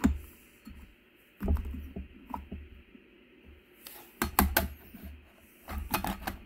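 Hard plastic dumbbell parts being handled and fitted onto an aluminium housing: scattered light clicks and knocks, with a quick cluster of sharp clicks about four seconds in and another near the end as the plastic plate is set in place.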